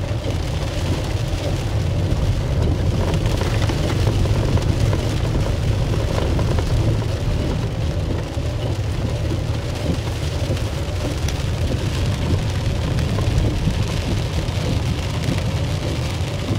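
Car driving through a flooded road in heavy rain: a steady rush of rain and water with a low rumble underneath.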